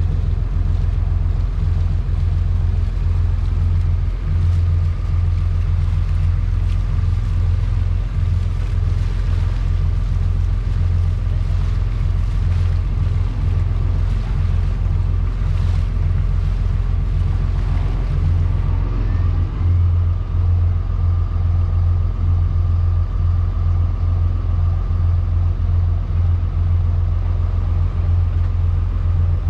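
A charter boat's engine running steadily under way, a low, even drone.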